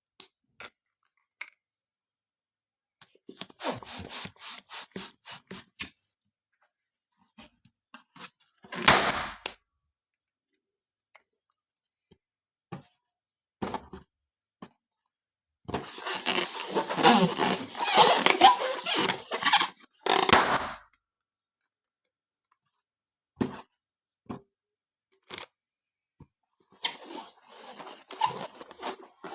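Handling noises as balloons and their packaging are unpacked: a quick run of clicks, a longer stretch of rustling and rubbing, and scattered single clicks.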